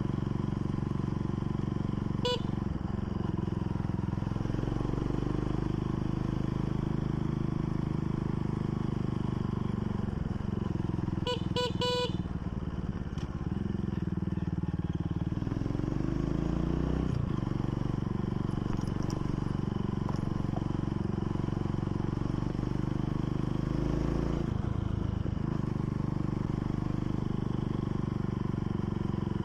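Motorcycle engine running steadily while riding, its note dipping and rising a few times as the throttle and gears change. Two brief beeping tones cut in, one about two seconds in and a short cluster around twelve seconds in.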